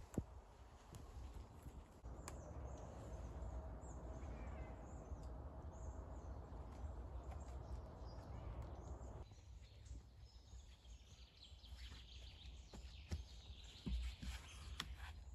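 Faint woodland ambience: a low wind rumble on the microphone, light knocks and rustling from rope being lashed around wooden poles, and faint bird chirps in the second half.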